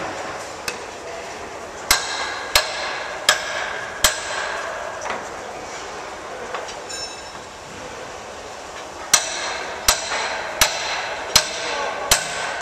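Hammer blows ringing on the steel boiler of an SY steam locomotive: four strikes about 0.7 s apart, a pause, then five more at the same pace, over steady workshop noise.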